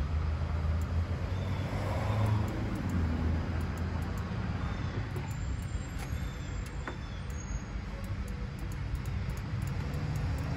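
Steady low rumble of motor vehicle traffic, with a few faint clicks.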